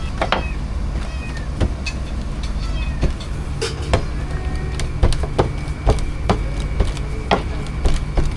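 Clatter of utensils and cookware at a food stall: frequent sharp knocks and clicks over a steady low hum, with a few faint chirps.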